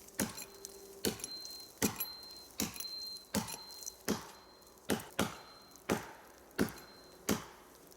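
An axe chopping into the trunk of a standing tree, about ten sharp blows at a steady pace of roughly one every three-quarters of a second. The cut is deep enough that the tree is close to falling.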